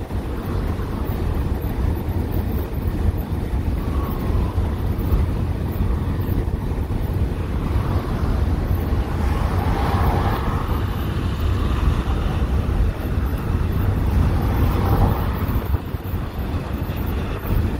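Wind buffeting the microphone with a steady low rumble, while a semi-truck passes on the highway about halfway through, its tyre and engine noise swelling and fading. A smaller swell of passing traffic follows a few seconds later.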